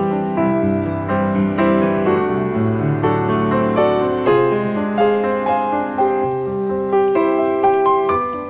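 Background music: a piano piece playing a flowing melody over sustained bass notes.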